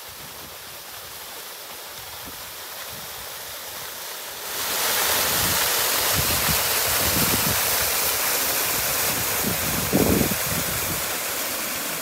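Waterfall rushing steadily, a strong flow of water pouring over a wall; it jumps louder about four and a half seconds in, and a brief low thump comes near the end.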